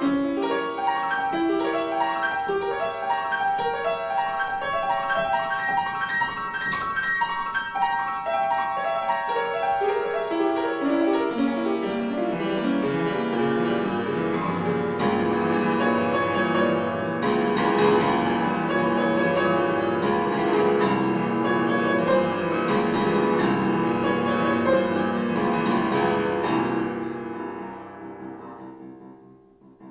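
Piano music: a run of notes, high in pitch at first, with lower notes joining partway through, fading out near the end.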